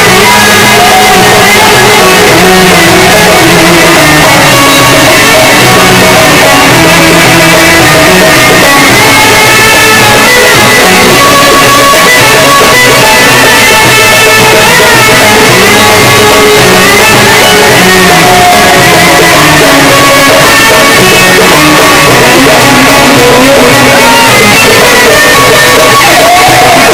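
Live Egyptian Sufi devotional music: hand-held frame drums and a riq tambourine beat out a rhythm under a melody, loud and unbroken.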